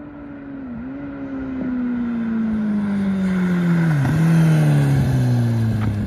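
Kawasaki ZX-10R sportbike's inline-four engine running, its note falling steadily in pitch, with two brief dips about a second in and about four seconds in. Rushing wind noise grows louder over it.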